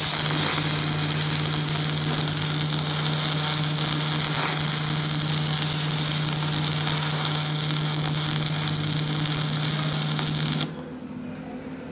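Stick arc welding: the electrode's arc crackling and sizzling steadily over a low steady hum while weld metal is built up on the broken end of a steel splined gear shaft. The arc stops suddenly near the end, leaving a faint hum.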